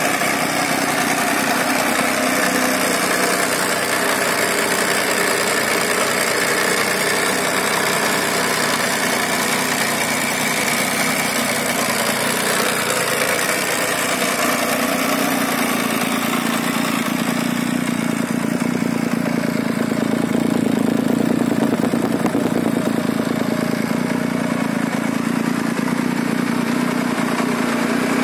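Benelli Tornado Tre 900's inline three-cylinder engine idling steadily, its low note growing fuller from about halfway through.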